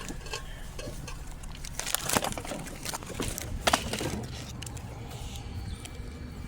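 Handling noises inside a parked car: scattered clicks and knocks with some crinkling, the loudest cluster about two seconds in, over a steady low hum.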